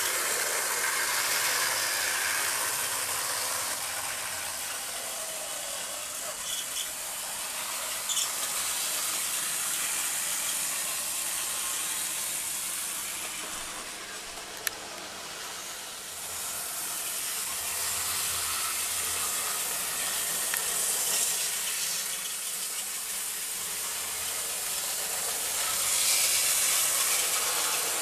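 A 009-scale narrow-gauge model train, a Mountaineer locomotive hauling a short train of coaches and vans, running around the layout's track: a steady hissing run noise from its small motor and wheels on the rails, with a few light clicks and one sharp click about halfway through.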